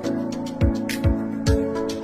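Background music with a steady beat: deep drum hits and sharp higher hits over held chords.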